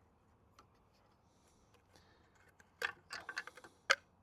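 Hard plastic parts of a van's side-mirror indicator lens clicking and rattling as they are handled. A single faint click is followed about three seconds in by a quick run of clicks, ending in one sharp snap.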